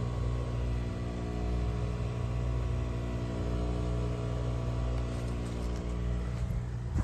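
Building water pump running with a loud, steady hum made of several held tones over a low drone.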